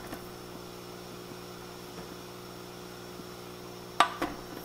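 Steady background hum. About four seconds in, a sharp clink and a smaller knock follow as a glass canning jar is set down inside an aluminum pressure canner with a jar lifter.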